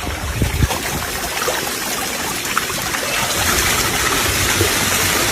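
Seawater rushing and washing in steadily as the tide comes in, slowly growing louder, with a couple of dull knocks about half a second in.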